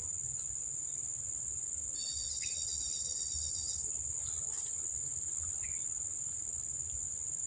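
Steady, continuous, high-pitched drone of an insect chorus. A separate short, high, steady-pitched call sounds over it from about two seconds in to nearly four seconds in.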